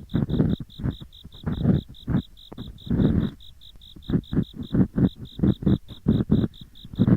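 Ear picks scraping and rubbing in the ears of a binaural microphone in quick, irregular rough strokes, the 'gori-gori' sound of ear cleaning. Behind them, autumn insects chirp steadily at about five or six pulses a second.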